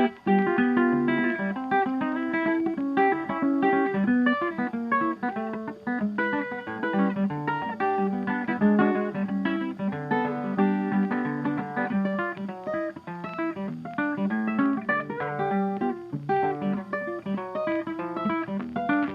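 Background music: acoustic guitar played in a quick run of plucked notes.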